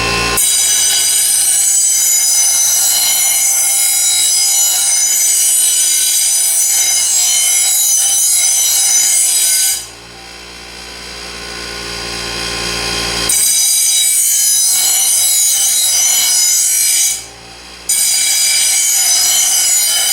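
Delta 6-inch variable speed bench grinder grinding a metal blade against its wheel in three long passes, with a harsh, hissy grinding noise. Between passes the grinder's running hum is heard, growing louder over a few seconds.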